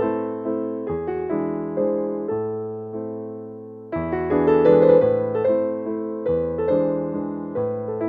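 Background piano music: a gentle melody of struck notes that ring and fade. It thins out and dies away about three seconds in, then comes back fuller and louder at about four seconds.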